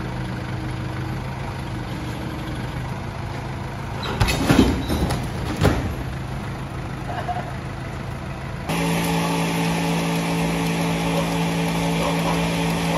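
Truck engine running steadily to power a truck-mounted crane lifting a log slab, with a few loud knocks and clatters around four to six seconds in. About nine seconds in the sound cuts abruptly to a different, louder steady engine hum with a low steady tone.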